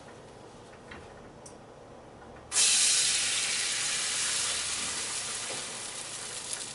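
Liquid egg whites poured from a carton into a hot nonstick frying pan, starting to sizzle loudly and suddenly about two and a half seconds in, then slowly easing off. A few light clicks of carton handling come before it.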